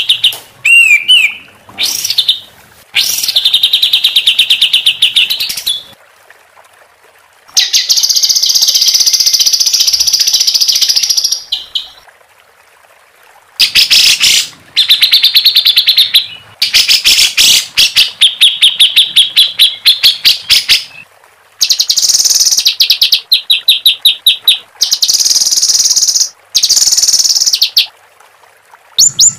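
Songbird masteran song of harsh 'tembakan' rolls: bursts of rapid, evenly repeated trilled notes, each a few seconds long, broken by short pauses. One burst about a third of the way in is rasping and harsher than the rest.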